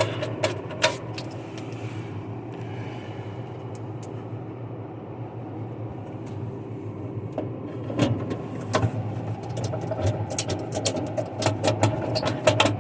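GE top-mount refrigerator running with a steady low hum, its newly replaced evaporator fan now quiet: a lot quieter, the fan noise cured. Scattered sharp clicks and taps from handling sound over it, mostly around the start and through the second half.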